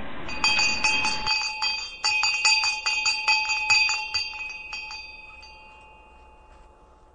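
Small bells or chimes struck in a quick, uneven run of some two dozen strikes, all on the same few ringing pitches. The strikes stop a little under five seconds in, and the ringing fades away.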